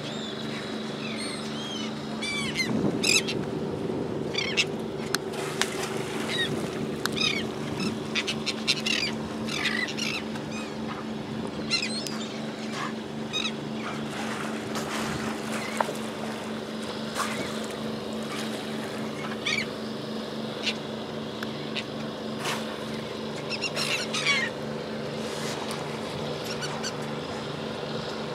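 Gulls calling again and again in short, high, arching squawks over the steady hum of a boat engine.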